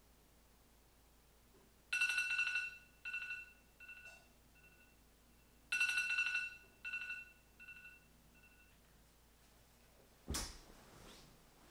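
Phone alarm tone going off twice: each time a bright chime sounds and repeats several times, fading away. About ten seconds in there is a short rustle of bedding as the sleeper stirs.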